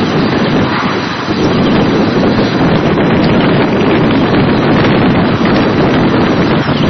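Wind buffeting the camcorder's microphone: a loud, steady rushing noise.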